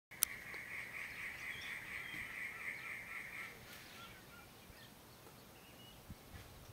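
Birds calling faintly: a continuous chatter for about three and a half seconds that stops abruptly, followed by a few short chirps. A single click sounds right at the start.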